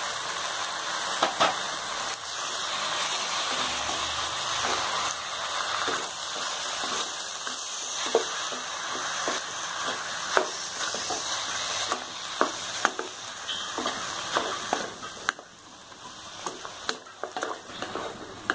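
Raw chicken pieces sizzling in hot oil with onions in a pan, stirred with a wooden spatula that knocks and scrapes against the pan now and then. The sizzle eases a little near the end.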